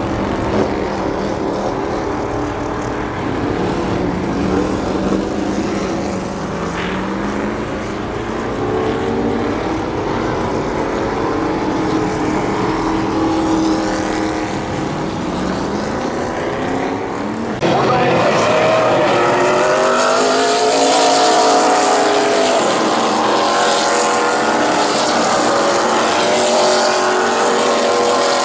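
NASCAR Truck Series race trucks' V8 engines running as they pass on the track, their pitch sweeping up and down as each truck goes by. About two-thirds of the way through the sound jumps suddenly to a louder, denser note of several trucks together.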